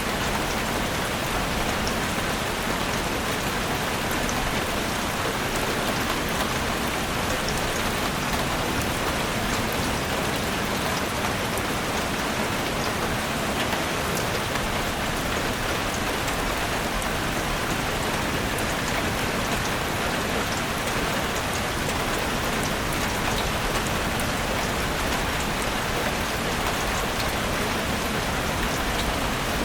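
Steady rain falling in a forest, a dense even patter of drops on leaves and surfaces with fine scattered drip ticks.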